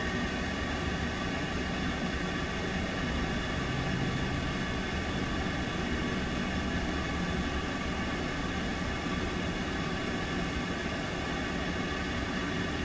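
A steady machine hum with a hiss and several unchanging tones held throughout, the even drone of an appliance or fan running.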